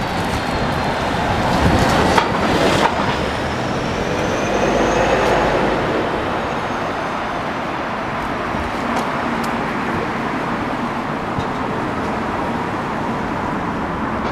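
Road traffic on a city street: a steady wash of passing vehicle noise, swelling as vehicles go by about two and five seconds in.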